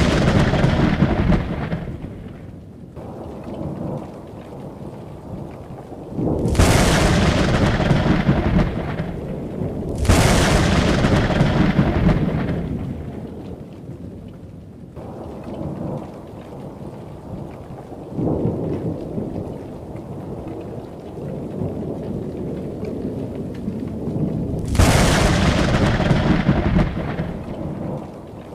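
Thunder from a nearby lightning storm: four sudden cracks, at about 6, 10, 18 and 25 seconds in, each rolling off into a long low rumble, with the tail of an earlier clap fading at the start. The one about 18 seconds in is softer. A steady low rumble fills the gaps between claps.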